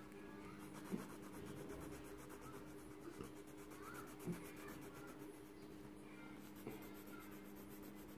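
Coloured pencil shading on drawing paper: faint scratchy rubbing strokes with a few light ticks, over a steady low hum.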